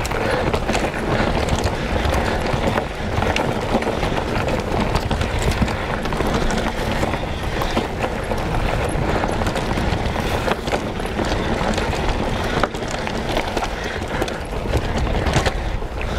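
Mountain bike ridden fast along a dirt singletrack: a steady rush of tyre noise and wind on the microphone, with frequent small knocks and rattles from the bike going over the ground.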